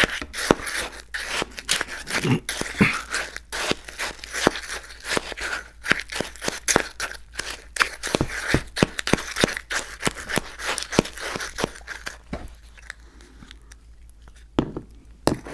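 Close-miked crunching and chewing of icy slush, a rapid run of crisp crackles and crunches that dies down to near quiet about twelve seconds in, with a couple of single clicks near the end.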